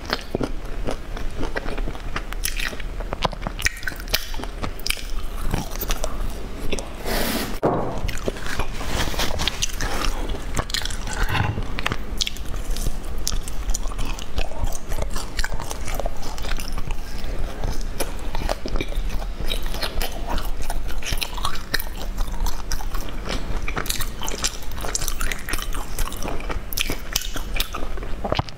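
Close-miked biting and chewing of a sesame-coated pastry, with dense crisp crackles throughout and one louder crunch about seven seconds in.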